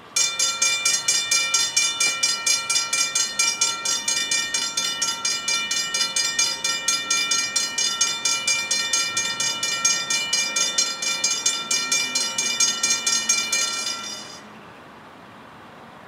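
Railroad grade-crossing bell, a Safetran hybrid mechanical bell, ringing rapidly at about four to five strikes a second: the crossing has activated for an approaching train. It starts abruptly and cuts off suddenly near the end.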